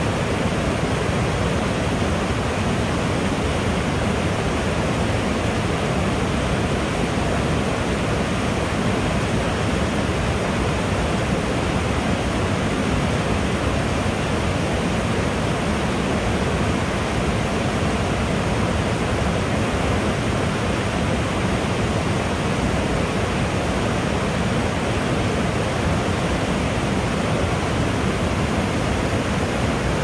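Waterfall rushing with a steady, unbroken roar of falling water.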